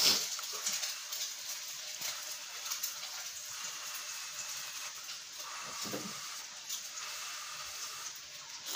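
A person eating noodles, slurping and chewing, with small mouth clicks here and there.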